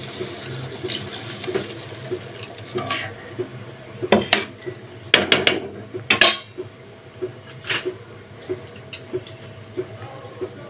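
Cold water poured from a steel cup into hot masala gravy in a steel kadhai, then the gravy simmering on the gas flame. Several sharp clinks of steel against the pan come around four to six seconds in and once more near eight seconds.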